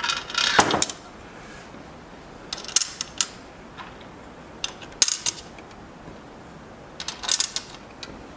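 Clinks and knocks of metal hardware handled on a plywood board: the steel base of a bandsaw blade tooth setter set down and small mounting screws picked up. The sound comes in four short spells of clatter about two seconds apart, the first with a duller knock.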